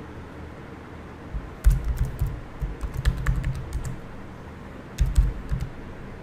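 Computer keyboard typing in bursts of quick keystrokes: a run of about two seconds starting a little over a second in, then a shorter run about five seconds in.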